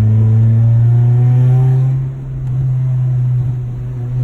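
Car engine running, its pitch climbing over the first two seconds, then easing off.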